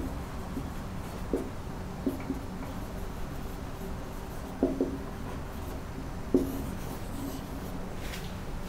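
Marker pen writing on a whiteboard: faint strokes, with a few short taps and squeaks scattered through, over a steady low hum.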